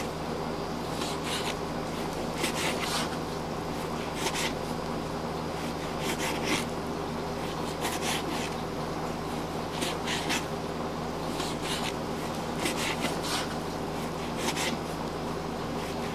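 Handling noise: fingers rubbing and scratching against the recording device close to the microphone, in short irregular scrapes about every second or two, over a steady low hum.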